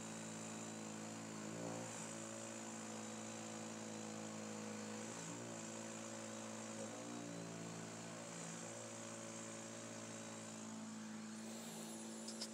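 CPAP machine and mask giving a steady buzzing hum at one pitch, wavering briefly a few times.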